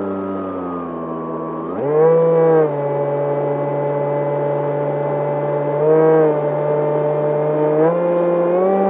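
Brushless electric motor and pusher propeller of an E-flite Opterra flying wing, heard from on board, its whine rising and falling with throttle: easing off at first, a sharp burst of throttle about two seconds in, another short burst around six seconds, and stepping up near the end.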